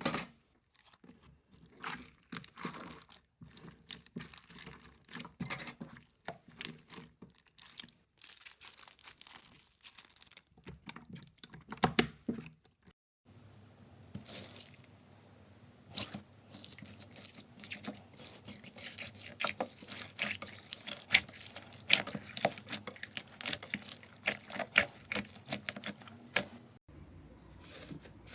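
Slime being squeezed, stretched and poked by hand: sticky crackling with many sharp little clicks and pops. It comes in several short clips one after another, with the crackling densest in the second half.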